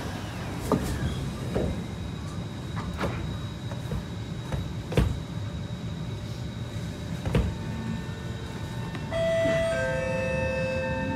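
Inside a Kawasaki C151 MRT train: a steady rumble with several sharp clunks from the doors and car body. About nine seconds in, steady electrical tones from the traction equipment start up, and near the end a rising motor whine begins as the train pulls away.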